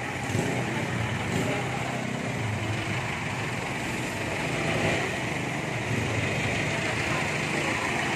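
Steady street noise with vehicle traffic running.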